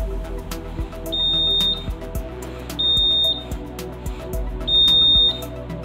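Small electronic buzzer on an LM358 IR proximity sensor circuit beeping three times with a high, steady tone, each beep about half a second long and spaced about two seconds apart. Each beep signals that the IR sensor has detected a hand in front of it. Background music with a steady beat plays throughout.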